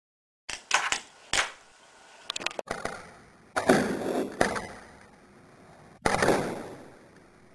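Tech Deck fingerboard on a wooden tabletop: several quick clacks as the board is flicked and flipped, then louder landings about three and a half and six seconds in, each followed by the wheels rolling out.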